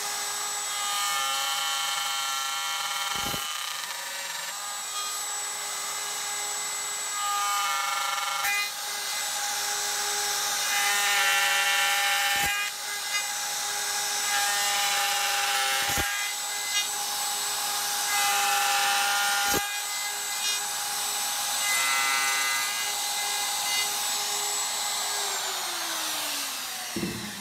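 Router with a dovetail bit running at full speed, cutting through-dovetail tails in exotic hardwood along a dovetail jig. The cutting noise swells and eases every few seconds as each slot is routed. Near the end the router is switched off and its whine falls as the motor winds down.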